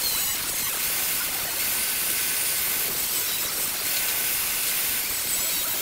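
Angle grinder with an abrasive cut-off wheel cutting through steel angle iron, a steady grinding hiss throughout.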